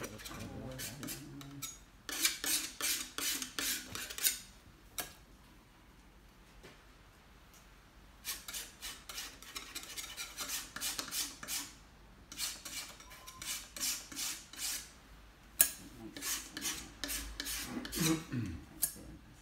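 Paintbrush scrubbing paint onto a canvas: runs of quick, scratchy strokes, several a second, with a pause of a few seconds in between and a single sharp click late on.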